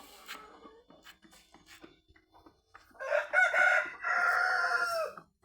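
A rooster crowing once, starting about three seconds in: a loud, drawn-out call that drops in pitch as it ends. Faint clicks come before it.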